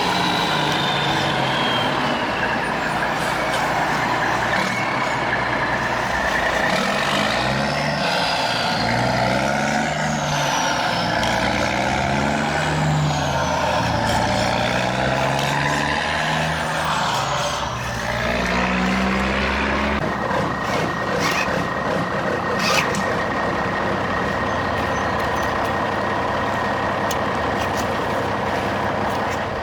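Radio-controlled construction trucks and an excavator working, their electric motors and servos whining in repeated rises and falls of pitch. A steady high tone joins about two-thirds of the way through.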